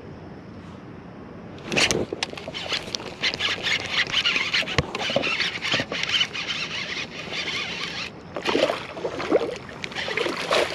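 Splashing and thrashing in the water from a hooked largemouth bass being reeled in, starting about two seconds in and going on in irregular bursts.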